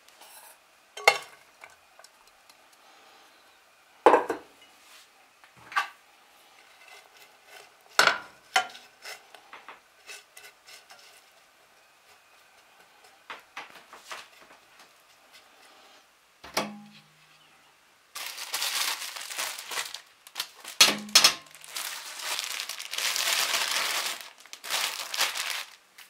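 Cooked spaghetti tipped into an oiled frying pan and stirred with a spatula: sharp knocks and scrapes of utensils against the pan, then a loud crackling hiss over most of the last eight seconds.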